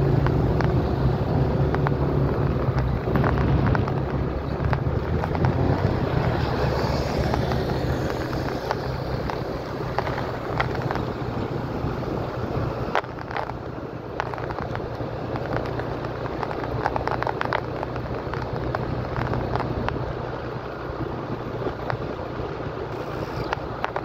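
Motor scooter running at low speed with wind rushing over the microphone and road noise. Its low engine hum is strongest at first and drops off about halfway through.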